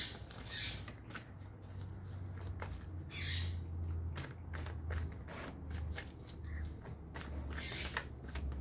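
A tarot deck shuffled overhand by hand: a quick, irregular run of soft card flicks and slaps. A low hum sounds underneath.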